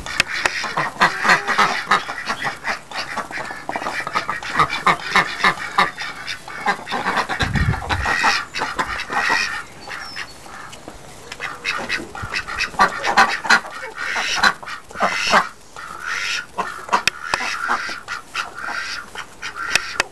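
A flock of domestic ducks quacking, with many short calls overlapping throughout. A brief low thump comes about seven and a half seconds in.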